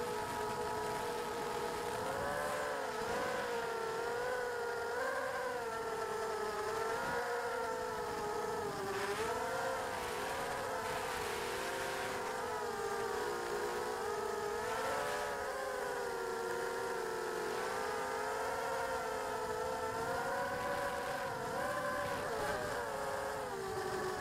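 FPV racing drone's electric motors and propellers whining, the pitch rising and falling again and again as the throttle changes through flips and low passes.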